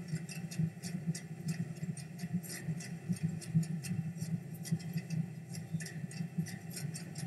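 Irregular sharp clicks and crackles, several a second, over a steady low rumble, like a sound-art soundscape of ice and water.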